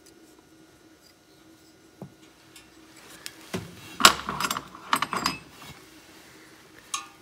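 Light clinks, knocks and rubbing of a new rivet and hubcap clip being fitted into the rivet hole of a stock VW steel wheel as the wheel is handled. They come as a cluster from about three and a half seconds in, loudest around four seconds, with one more click near the end.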